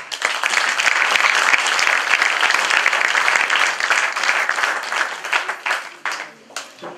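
Audience applauding, a dense even clapping that thins out to a few scattered claps near the end.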